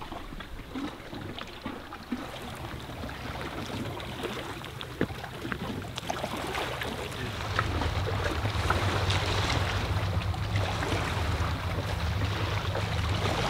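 Wind blowing across the microphone, with small lake waves lapping against the shore rocks. The low wind rumble grows louder about halfway through, and there are a few faint clicks.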